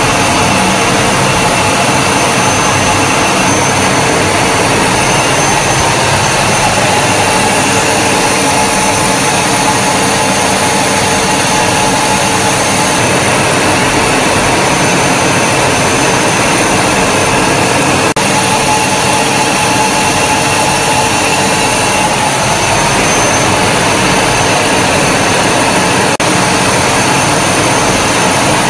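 Jet engine noise heard from inside an aircraft cabin in flight: a steady, loud rush with a few constant whining tones over it.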